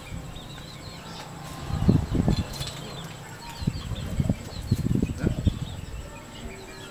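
Red junglefowl wings flapping in two short, loud bouts, one about two seconds in and another around five seconds. Faint high bird chirps sound in between.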